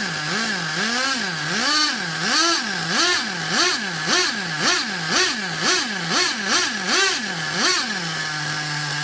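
Newly installed DTX .18 two-stroke nitro engine running, revved in quick blips over a dozen times, about twice a second, each rising and falling in pitch, then settling back to a steady idle near the end.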